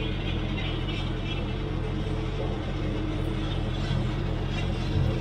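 A car engine idling steadily: a low, even rumble with no revving.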